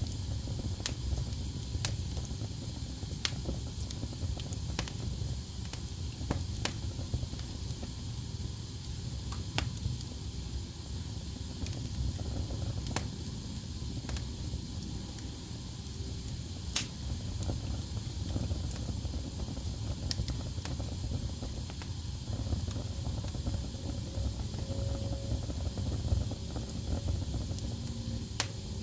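Wood fire burning in a fireplace: a steady low rumble and hiss of flames, with sharp crackles and pops from the logs every second or two.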